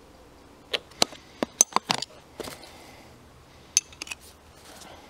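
Sharp metallic clicks and clacks of a folding camp stool's tubular metal legs being handled and fitted together: a quick run of about eight in the first couple of seconds, then two more a little later.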